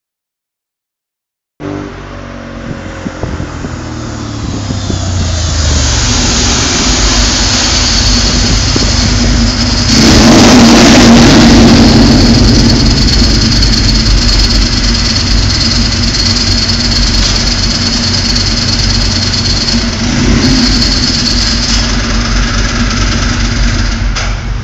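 Ducati 749 motorcycle's V-twin engine with a Termignoni exhaust passing by in a tunnel, heavily echoing. After a second and a half of silence the exhaust note builds as the bike approaches, is loudest about ten to twelve seconds in, and stays loud as it rumbles on in the tunnel's reverberation.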